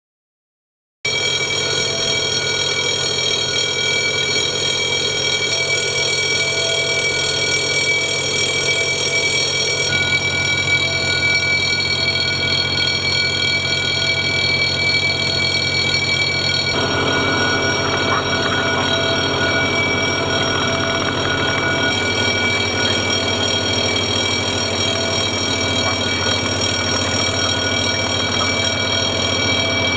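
Building fire alarm bell ringing steadily, starting about a second in. It is sounding because frozen sprinkler pipes have burst and flooded the building.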